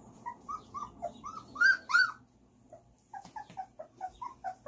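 Three-week-old puppies whimpering: a run of short, high squeaks that builds to two loud yelps about two seconds in, then another run of quicker squeaks near the end.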